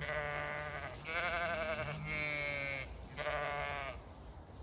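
Zwartbles sheep bleating: four long, quavering bleats one after another, with a deeper bleat overlapping the middle ones.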